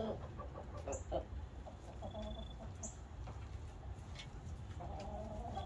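Roosting hens clucking softly with a few short calls, and a longer drawn-out call starting near the end, over a low steady hum. The hens are settling on the roost for the night.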